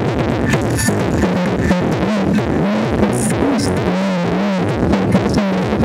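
Loud electronic dance music with a wavering synthesizer line over a steady beat, played through a van's car-audio system: a rear wall of subwoofers, midrange speakers and horn tweeters.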